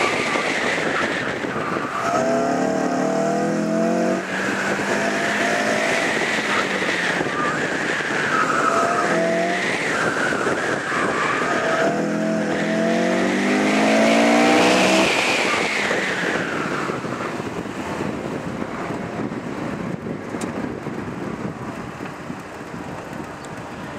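2005 Honda S2000's four-cylinder engine revving hard through the rev range four times, with tyres squealing through the turns of an autocross run. After about sixteen seconds the squeal stops and the engine sound drops away as the car slows.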